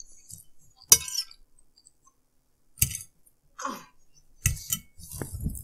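A metal fork clinking against a ceramic dinner plate while noodles are picked up: three sharp clinks about two seconds apart, with fainter scrapes between.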